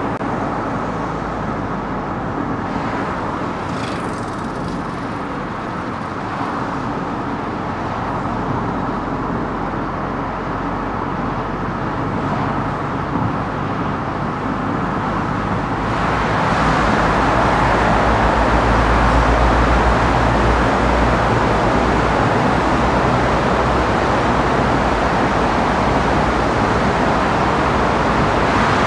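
Road noise of a car driving through city traffic: steady tyre and engine rumble, which grows louder about halfway through.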